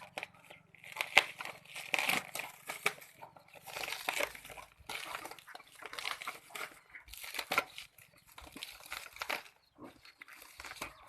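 Wrapping being crumpled and torn off in irregular bursts of crinkling, with a few sharp clicks.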